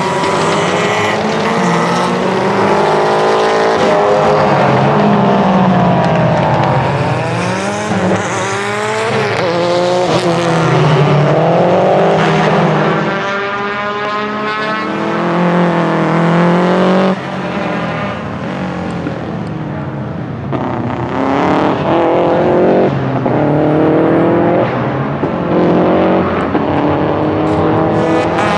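Subaru Legacy RS Group A rally car's 2.0-litre turbocharged flat-four boxer engine pulling hard, its revs rising in repeated climbs and dropping back at gear changes and lift-offs. The sound drops sharply about two-thirds of the way through.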